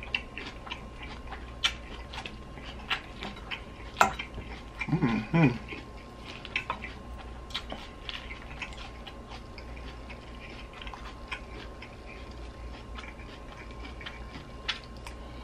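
Close-miked eating: crisp chewing of kale and cabbage salad, with metal fork tines clicking and scraping against a glass bowl in many small ticks. There is one sharper click about four seconds in, and a brief voiced 'mm' about five seconds in.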